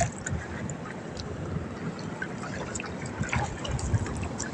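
Water trickling and dripping off a wet push net lifted out of the shallows, with a few faint ticks.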